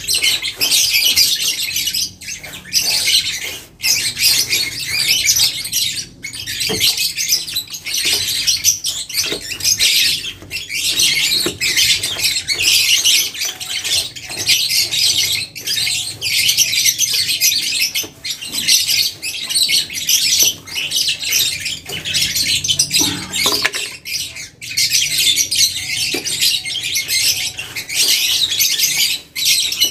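A paintbrush scrubbing a cement-based waterproofing slurry onto rough concrete. It makes a scratchy bristle noise that swells with each stroke and breaks off briefly between strokes, every second or two.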